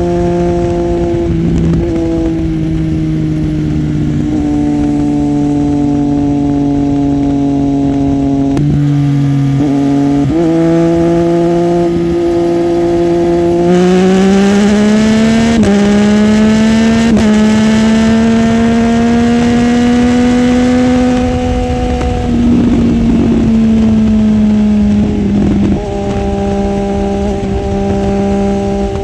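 Triumph Street Triple's three-cylinder engine running hard at highway speed, with wind rushing over the bike. The engine note climbs sharply about halfway through as the throttle opens and holds high, then eases back down in the last third.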